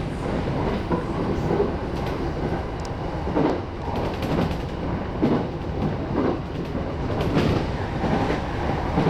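E217-series electric train running at speed, a steady rolling rumble with the wheels clacking over rail joints roughly once a second, heard from the front of the train.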